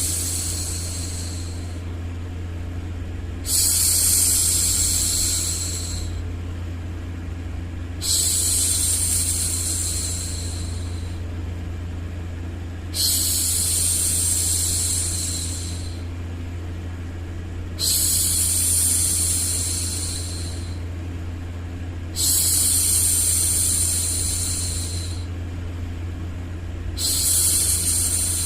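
A woman's voice shushing a baby: long 'shhh' sounds repeated about every five seconds, each starting sharply and fading away, over a steady low hum.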